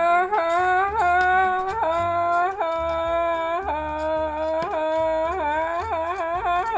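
A woman humming a wordless tune, sliding into each held note, over soft background music with a low bass line.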